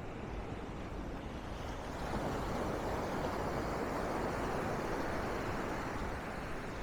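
A sea wave rushing up the beach, the wash of surf swelling over a couple of seconds and then easing off.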